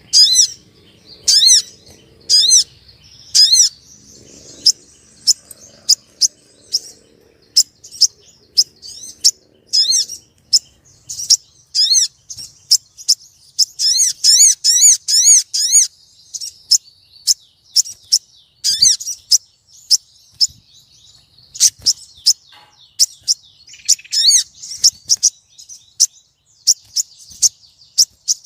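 Female sogon bird calling to a male: a long series of short, sharp, high chirps, some single and some in quick runs, densest around the middle.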